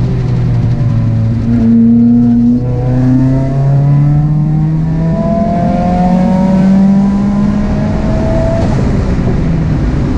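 2018 Subaru WRX's turbocharged flat-four, with a catless J-pipe and custom 3-inch exhaust, pulling hard on track. Its pitch climbs slowly for several seconds, then falls near the end as the throttle comes off.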